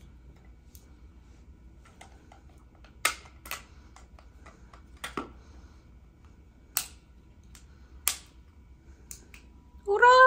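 Sharp plastic clicks, a handful spread a second or two apart, as fresh AA batteries are pressed into a string light's plastic battery box and it is handled shut. Near the end a loud, long high-pitched call breaks in.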